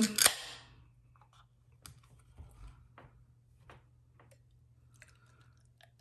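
Aluminium beer can opened by its pull tab: a sharp crack with a short fizzing hiss at the very start, then a few faint clicks and taps as the can and glass are handled.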